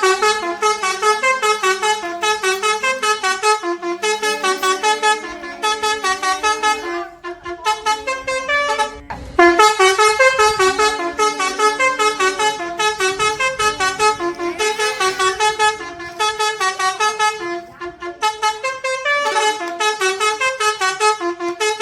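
Telolet multi-tone bus horn (Basuri type) playing a fast, jingly melody of short pulsing notes, in phrases broken by brief pauses.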